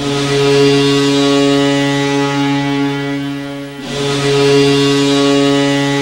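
Kahlenberg KM-135 goal horn sounding a long, deep blast with added reverb; it breaks off briefly a little under four seconds in and sounds again.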